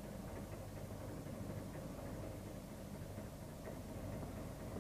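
An engine running steadily with a low hum, slowly getting louder.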